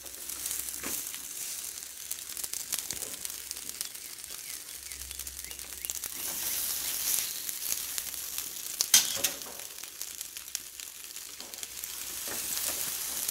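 Raw marinated chicken breasts sizzling on a copper grill mat over a hot grill, a steady high hiss. Occasional sharp clicks come from the metal tongs and shears as the pieces are set down and trimmed, the loudest about nine seconds in.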